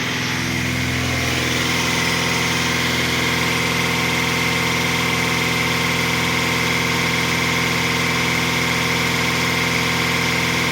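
GAZelle van cruising steadily at 100 km/h in fifth gear, heard from inside the cab: an even engine and driveline hum that does not change. At this speed the gearbox is not howling; the driver calls it quiet.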